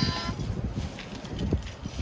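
Plastic toy trucks knocking and clattering as they are handled and rolled, with irregular low bumps and a few light clicks. A toy's electronic sound effect of held tones cuts off just after the start.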